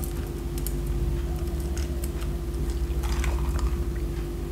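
A person sipping a freshly made cocktail over ice, with small irregular clicks and clinks, over a steady low hum.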